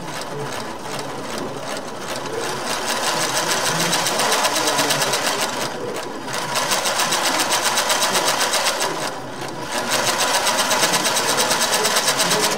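Electric motor driving a 3D-printed plastic model gearbox, its gears running with a fast, even clatter. The sound drops away briefly twice, about six and nine seconds in, as the gear lever is shifted.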